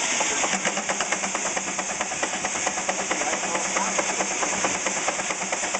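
8 hp Russell portable steam engine running under belt to a model sawmill: a fast, even clatter of beats over a steady steam hiss.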